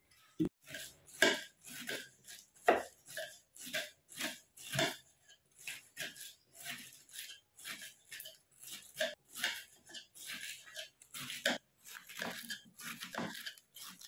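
Kitchen knife shredding a head of cabbage on a cutting board: short, crisp cuts at about two a second.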